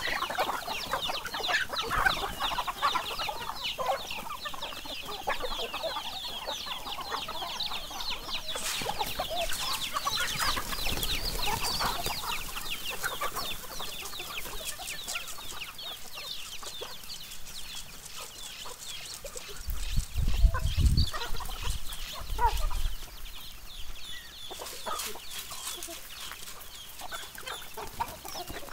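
A large flock of chickens clucking and cheeping continuously as they crowd in to feed on scattered grain. A brief low rumble about two-thirds of the way through.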